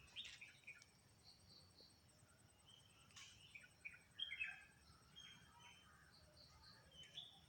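Faint bird chirps, short scattered calls, with a faint steady high insect trill underneath.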